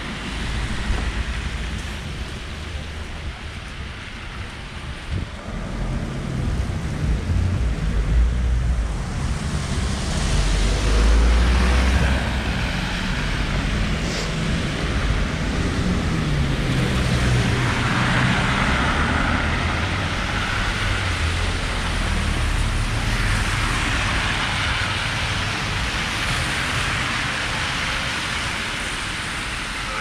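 Road traffic passing on a town street: tyre and engine noise swells about ten seconds in and eases near the end, over a steady low rumble.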